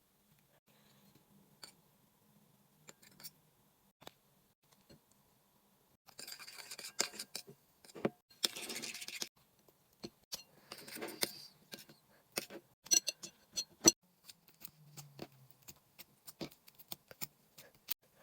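Hands working with slime-making materials: irregular clicks and taps, with three short rustling bursts about six, eight and ten seconds in, then a quick run of sharp clicks and pops near the end.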